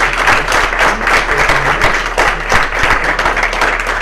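A small audience applauding: many people clapping in a dense, steady patter.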